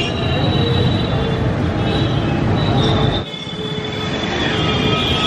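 Busy street traffic noise with several high, steady squealing tones over it. The sound drops abruptly and changes character about three seconds in.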